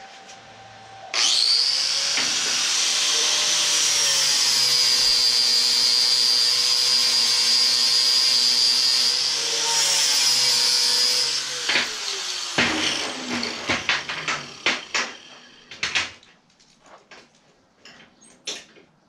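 Electric angle grinder switched on about a second in and grinding steel for about ten seconds, its high whine dipping in pitch under load and then holding, before it spins down. A run of sharp metal clanks and knocks follows as the steel parts are handled.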